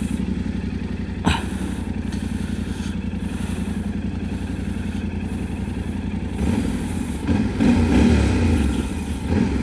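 Yamaha Ténéré 700's parallel-twin engine running steadily with an even low pulse. There is a sharp click about a second in. From about six and a half seconds the engine sound grows louder and uneven for a few seconds, then settles back near the end.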